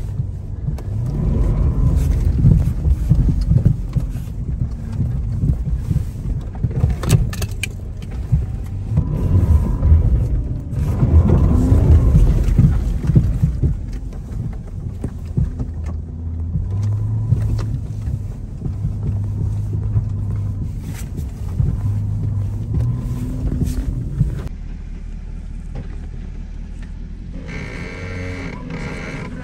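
Porsche Cayenne S 4.5-litre V8 on 35-inch tyres driving a rough dirt track, heard from inside the cabin: a heavy rumble with bumps and jolts, settling to a steadier low engine hum about halfway through.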